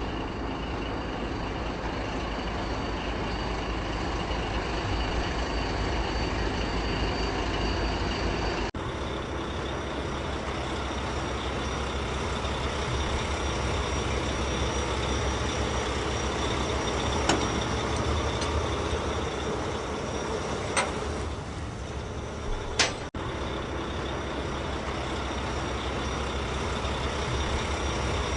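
Steady engine-like mechanical running noise, in segments joined by abrupt cuts, with three sharp clicks in the second half.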